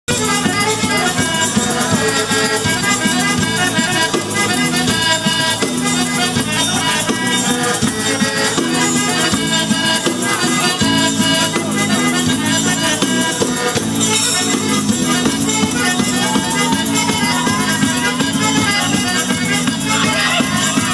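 Live folk band playing a tarantella, with acoustic guitars and a steady percussion beat, continuously and at full volume.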